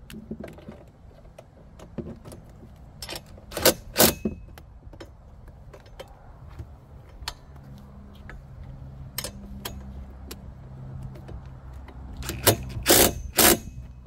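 DeWalt cordless drill with a socket running slowly to drive a seat-belt retractor bolt's nut down, a steady low hum, with sharp metal clinks twice about four seconds in and several more near the end.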